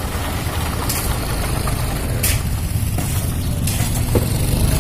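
A small engine running steadily, with three short scraping noises about a second, two seconds and three and a half seconds in.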